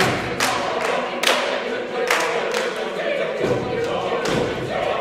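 Mixed choir singing held chords with body percussion: sharp hand claps and foot stomps struck across the singing every half second to a second.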